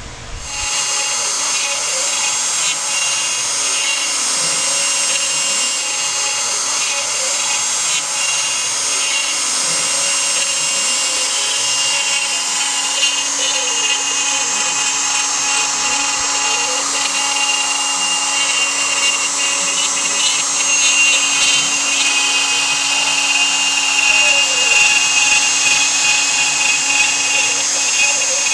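Hobby CNC router running a 3D carving pass with an eighth-inch ball nose bit. The spindle comes on about half a second in with a steady high whine, and lower tones rise and fall over and over as the axes move back and forth.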